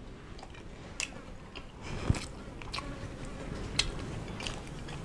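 A person chewing a mouthful of fried fish and rice, with a few sharp clicks scattered over the chewing.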